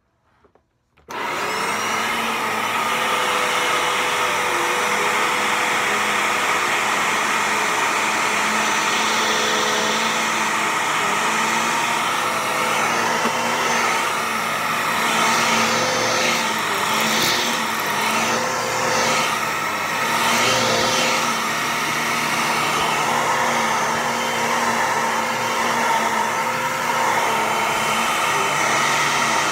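A 12-amp upright vacuum cleaner switches on about a second in and runs steadily as it is pushed over carpet, sucking up spilled creatine powder.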